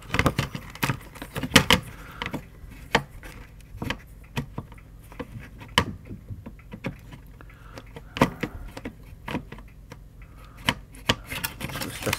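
Irregular clicks, knocks and rubbing from hands handling a circuit board and its wiring against the plastic housing of an induction hob, with a cluster of louder knocks in the first two seconds.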